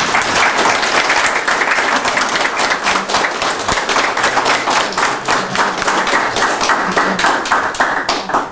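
Audience applauding: dense, steady clapping that stops fairly suddenly near the end.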